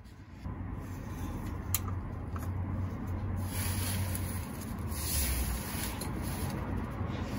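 Hand tool work on a truck's oil pan drain plug: a single sharp click about two seconds in as the wrench goes on, then rubbing and scraping of hand and tool, over a steady low rumble.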